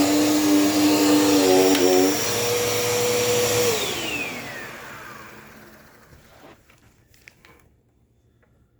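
Dirt Devil Power Max upright vacuum cleaner running loudly with a steady whine, then switched off: its motor winds down with a falling whine, fading out by about six seconds in. A few faint clicks follow near the end.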